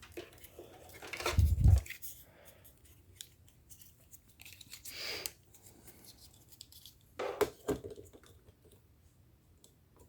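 Computer cables and connectors being handled and plugged in: scattered small clicks and rustles, with a soft knock a little over a second in and a short cluster of clicks about seven seconds in.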